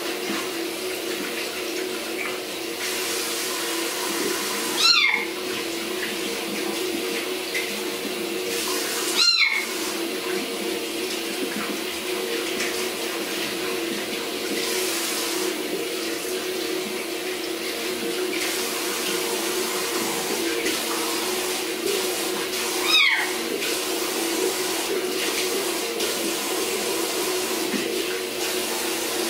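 Bathroom sink tap running steadily as a young kitten is rinsed under it, with the kitten meowing three times in short, high-pitched cries, about five, nine and twenty-three seconds in.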